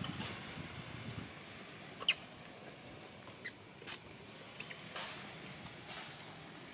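A few short, high squeaks from a newborn macaque, coming a second or so apart, with faint clicks between them. A low rumble is heard in the first second.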